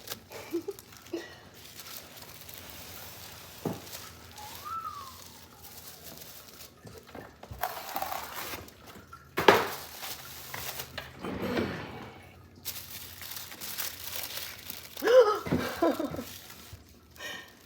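Rustling and crinkling of packaging as items are handled, with a few sharp knocks as things are set down, about three in all.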